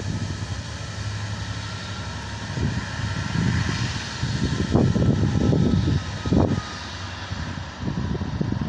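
A pair of Class 66 diesel-electric locomotives passing in the distance, their two-stroke EMD V12 engines heard as a steady drone. Irregular low gusts of wind rumble on the microphone over it.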